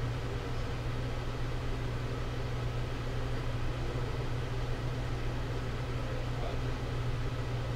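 Homemade ionizer box running: a steady low electrical hum with a faint hiss from its ionizer modules and small fan.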